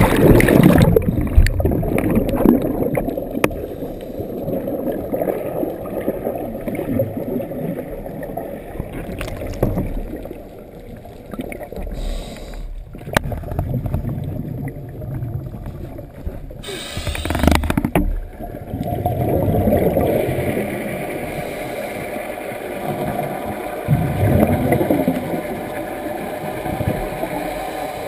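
Splash of a scuba diver entering the sea, then muffled underwater sound with the gurgle of regulator exhaust bubbles swelling and fading every few seconds.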